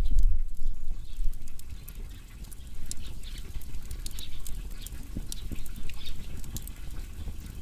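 Firewood burning, crackling and popping with scattered sharp snaps over a low rumble; the rumble is louder in the first second or so, then eases.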